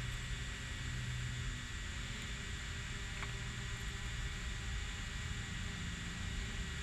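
Steady background noise: an even hiss over an uneven low rumble like wind on the microphone, with a faint steady high tone and one small click about three seconds in.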